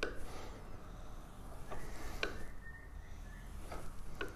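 Chisel being honed on an 8000-grit Japanese water stone: the steel blade rubbing back and forth on the stone, a faint scraping with a few light clicks.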